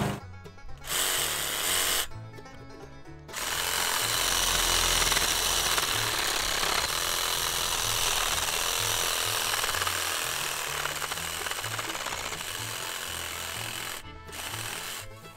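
A brief musical sting, then a Ryobi cordless reciprocating saw running with its blade stroking through a tree limb for about ten seconds, over light background music. The saw stops shortly before the end.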